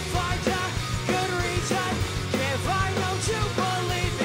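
Pop-punk band playing live: electric guitars, bass and drum kit, with a melody line that bends in pitch over a steady pounding low end.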